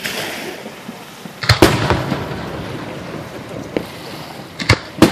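Fireworks shells bursting: a loud bang about a second and a half in followed by a rolling rumble, a smaller pop later, and two sharp bangs close together near the end.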